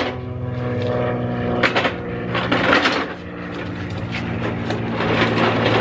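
A portable wheeled grill is tipped onto its wheels and rolled over asphalt, rattling and clattering, over the steady drone of an idling engine.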